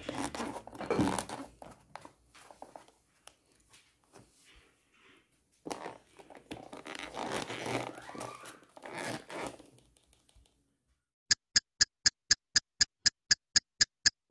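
Hands handling a plastic food tub and its lid, with rustling, crinkling and scraping in two spells. About eleven seconds in comes a rapid, even run of a dozen or so short electronic beeps.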